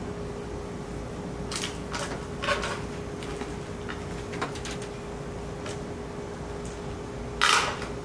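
Scattered light clicks and rustles, with one louder scraping rustle near the end, over a steady background hum that carries a faint constant tone.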